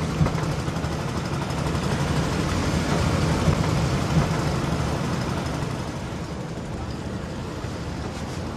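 Engine of a small river ferry boat (perahu tambang) running steadily under way, a little louder in the middle and easing slightly toward the end.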